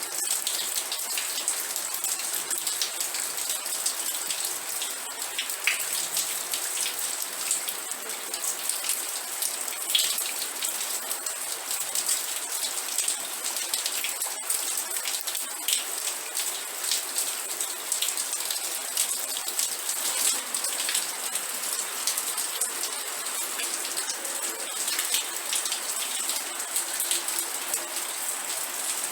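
Steady rain falling and pattering on a surface, a dense hiss of countless small drops with a few louder individual drips now and then.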